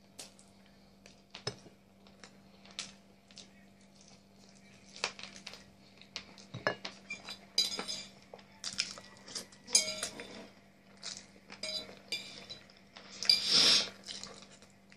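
Metal fork clinking and scraping against a ceramic plate while the last of a plate of pasta is scooped up: scattered sharp clinks, sparse at first and more frequent from about the middle on, with a louder, longer noise near the end.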